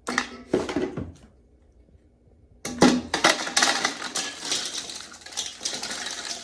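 Cooking pot and utensils clattering and scraping: two short clinks, a pause, then a long stretch of busy rattling and scraping as seafood is handled in the pot.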